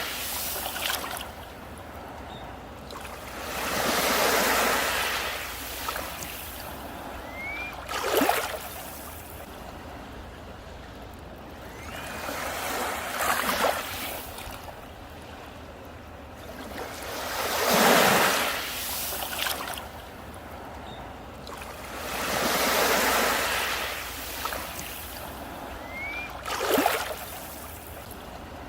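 Sea waves breaking on a beach, a wave rising and washing in about every four to five seconds, a couple of them with a sharper splash, over a steady surf wash.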